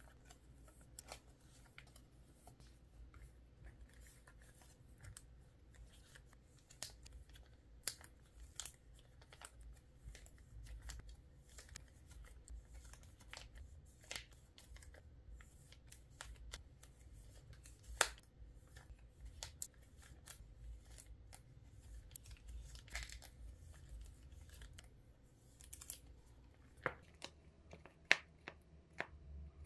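Photocards and clear plastic card sleeves being handled: scattered light clicks, taps and crinkles of card and plastic, a few of them sharper, over a faint low hum.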